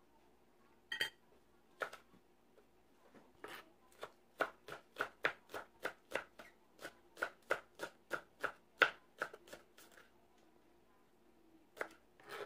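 Knife slicing spring onion on a plastic cutting board: a few single knocks, then a steady run of quick, even chops about three a second for some six seconds, and a couple more knocks near the end.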